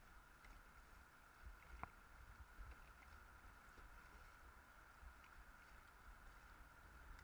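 Near silence: faint, muffled wind rumble and water noise from a dragon boat being paddled, with one faint sharp knock about two seconds in.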